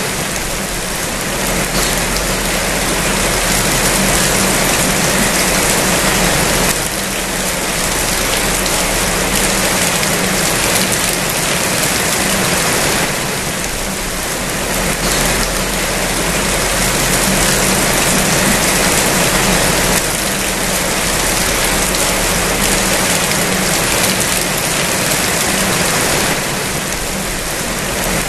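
Steady heavy rain falling, a dense hiss that swells and eases slightly every several seconds.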